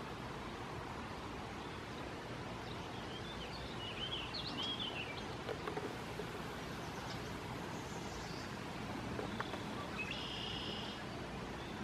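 Steady outdoor background noise with small songbirds calling: a run of short high twittering chirps about four seconds in and a brief buzzy trill near the end.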